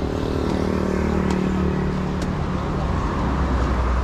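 Road traffic passing: one vehicle's engine hum sinks slightly in pitch and fades over the first half. A deeper rumble from another vehicle comes in near the end.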